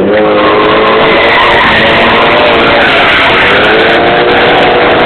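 Drift car's engine held at high revs, its pitch rising and falling as the car slides, over loud tyre squeal.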